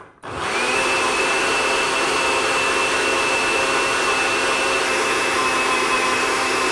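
Countertop blender motor starting about half a second in, spinning up, then running steadily at full speed with a constant whine as it purées cooked potato and leek soup.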